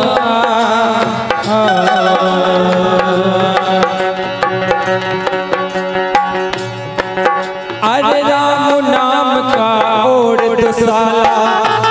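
Live devotional folk song accompaniment: tabla playing a steady beat under held melody notes, with a male voice singing wavering, drawn-out notes at the start and again from about eight seconds in.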